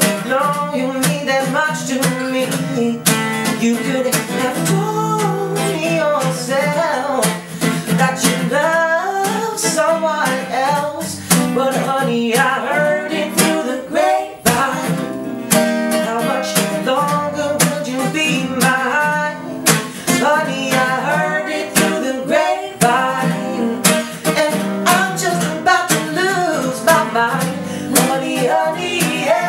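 Strummed acoustic guitar with a wavering, wordless melody line over it, in an acoustic duo's song.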